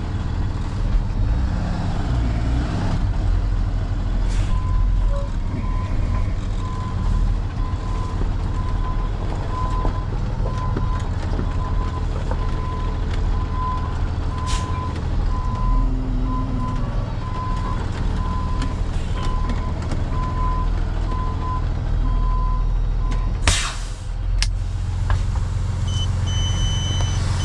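Heavy diesel truck engine running while a backup alarm gives a steady string of evenly spaced beeps. The beeping stops shortly before a short, sharp burst of noise near the end.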